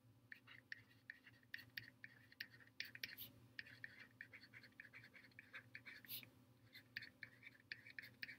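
Faint scratching and light tapping of a stylus writing by hand on a tablet, many short strokes in quick irregular succession over a low steady hum.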